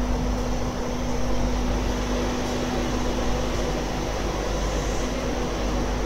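Class 91 electric locomotive standing at the platform with its pantograph raised, giving a steady hum with a constant low tone.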